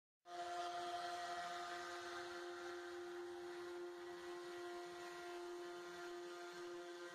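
Tormach CNC mill's spindle running with a steady whine as its bit cuts a wooden mold, starting abruptly just after the start and holding the same pitch throughout.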